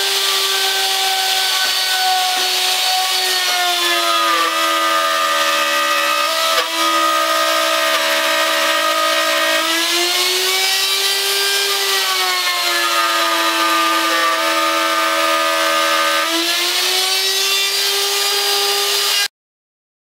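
Compact router running at full speed while routing a slot in a wooden board; its whine sags lower each time the bit bites into the wood under load and rises back as the load eases, several times over. It cuts off suddenly just before the end.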